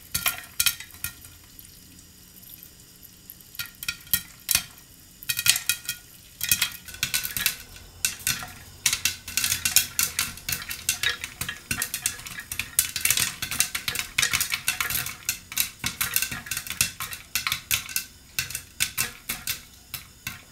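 Popcorn kernels popping inside a closed pressure cooker: scattered sharp pops at first, becoming a dense, rapid, irregular run after about six seconds. The ongoing popping means the corn is still cooking; it is done once the pops stop.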